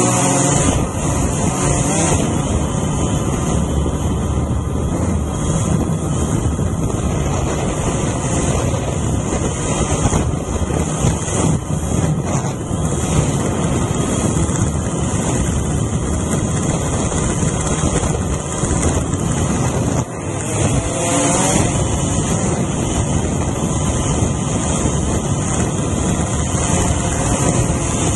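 Multirotor drone's motors and propellers whirring steadily, heard from a camera mounted on the drone, with wind on the microphone. About two-thirds of the way through the sound dips briefly and the motor pitch glides as the throttle changes.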